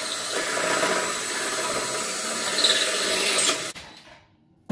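A 7/8-inch hole saw on a power drill cutting steadily into a steel door frame. The drill stops about three and a half seconds in, once the hole is cut through.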